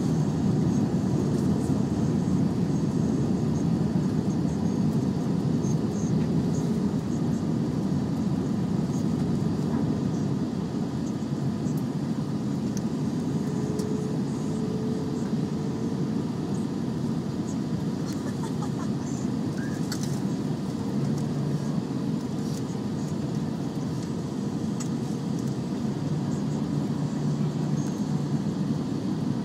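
Steady cabin roar inside an Airbus A320 on approach, with the flaps out: engine and airflow noise heard from a seat over the wing. It eases slightly about a third of the way in.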